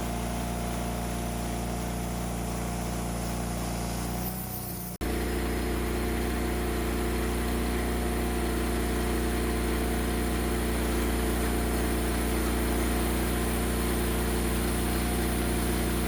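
Woodmizer LT40 portable sawmill running steadily, with a gasoline engine under power. About five seconds in, the sound breaks off abruptly and comes back louder and fuller.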